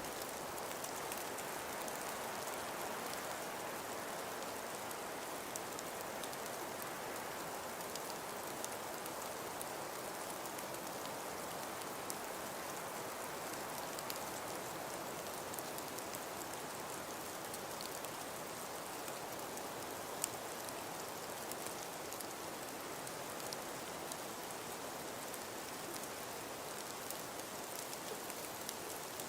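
Steady windblown snowfall: a soft, even hiss that gently swells and eases, scattered with faint fine ticks of flakes or ice grains striking surfaces.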